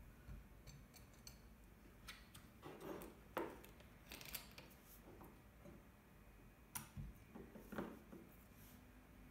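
Scattered light taps and clinks of small glass bottles being picked up, moved and set down on a desk, the loudest about three and a half seconds in. A cap is fitted onto a bottle near the end.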